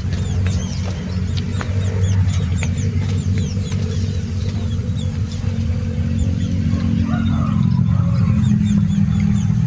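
Many birds chirping in quick, short falling notes over a steady low engine hum, whose pitch shifts about eight seconds in.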